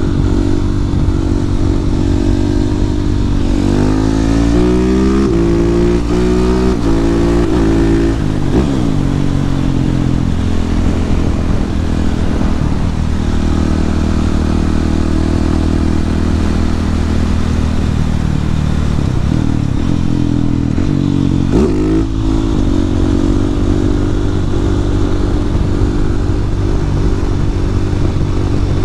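Husqvarna 701 Supermoto's big single-cylinder engine under way, its pitch climbing and dropping in several steps in the first eight seconds, then holding steady at cruise, with a brief dip and rise about 21 seconds in. Heard from a microphone inside the rider's helmet, with steady wind noise.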